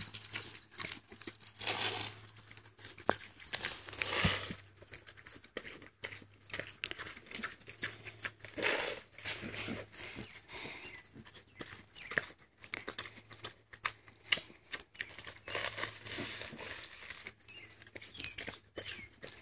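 A pig chewing iceberg lettuce: irregular wet crunching and lip-smacking, with louder bouts of munching as he tears at the head.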